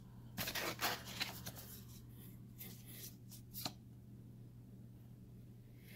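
Business cards and paper inserts being handled and shuffled by hand: a cluster of crisp paper rustles about half a second in, then a few scattered ones before it stops.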